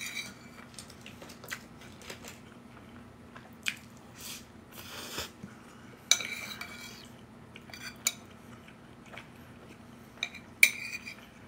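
Metal spoon clinking and scraping against a ceramic plate while scooping up food: several sharp clinks spread through, each ringing briefly.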